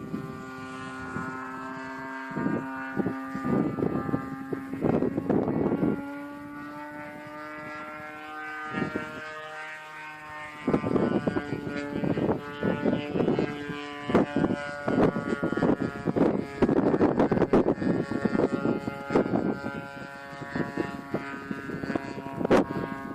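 Christen Eagle biplane's propeller engine running steadily, with uneven rushes of wind noise over it.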